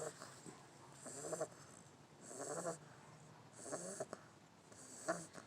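Snoring in sleep: four rasping snores, evenly spaced about every 1.3 seconds.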